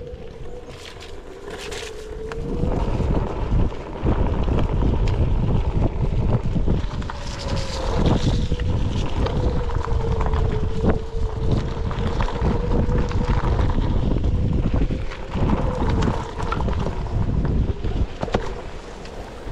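Onewheel electric board's hub motor whining with a steady tone that dips and rises with speed, under heavy wind noise on the microphone that grows about two seconds in as the board speeds up.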